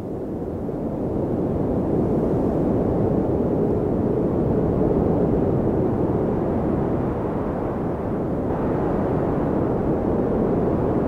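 Wind blowing steadily in a snowstorm, a low, even rush that swells up over the first couple of seconds and turns a little brighter about eight seconds in.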